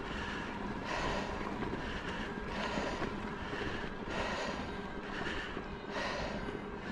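Riding an e-bike, filmed on a GoPro: a steady rumble of tyres and wind on the microphone, with the rider breathing hard about every one and a half to two seconds.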